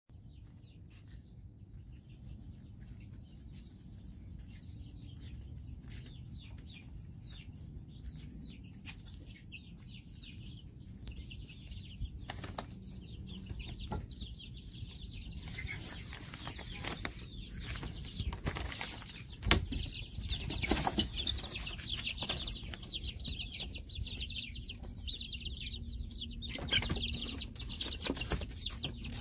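A brood of young chicks peeping: many short, high chirps, faint at first and growing louder and denser in the second half. A few knocks and some handling noise come through as well.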